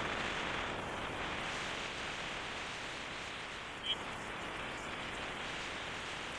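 Steady rushing wind and road noise from a vehicle moving along a highway, with one short sharp click about four seconds in.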